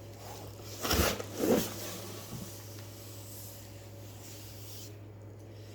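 Two short rustling, scraping handling sounds about a second in, and a faint one a second later, as packaging and parts are handled during an unboxing, over a steady low hum.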